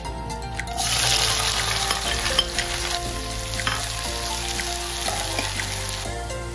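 Food frying in hot oil: a sizzle that starts suddenly about a second in, loudest at first, then settles and stops near the end.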